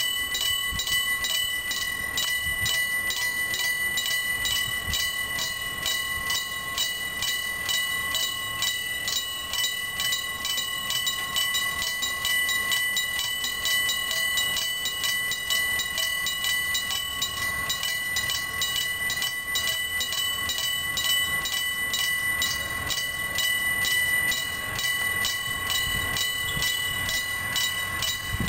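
Electric-bell level-crossing alarm (Nippon Signal 電鐘式) ringing continuously with rapid, evenly spaced metallic strokes, warning that a train is approaching.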